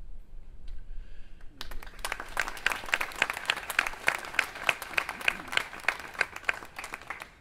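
Seated audience applauding, starting about a second and a half in, with loud, regular claps from someone close by at about three a second.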